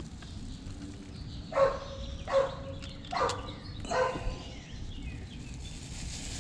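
An animal calling four times, the calls evenly spaced a little under a second apart.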